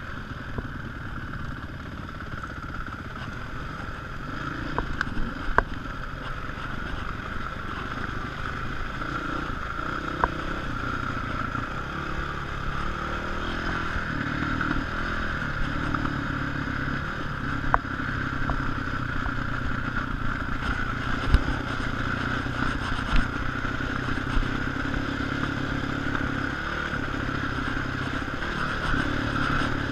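Enduro dirt bike engine running as the bike is ridden over rough grass, the revs rising and falling with the throttle. Several sharp knocks from the bike over bumps.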